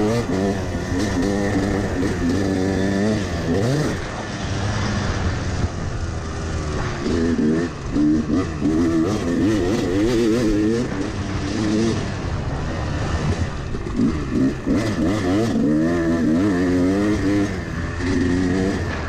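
Yamaha 250 two-stroke dirt bike engine revving up and down, rising and falling in pitch again and again as the rider works the throttle around the motocross track.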